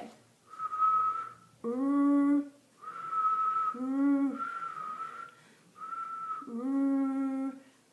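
A woman whistling short single notes on one steady pitch, alternating with three hummed, voiced notes of about a second each. It is the whistle-and-hum exercise that shapes the tongue for the American English R.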